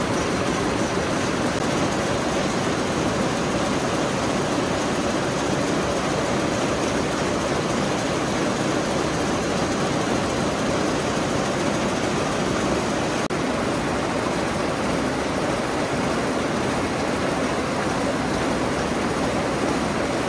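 Jacquard label looms running, giving off a steady, dense mechanical noise as they weave strips of woven labels.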